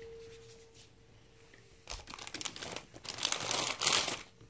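Plastic cookie packaging crinkling and rustling as it is handled. It starts about two seconds in and is loudest near the end.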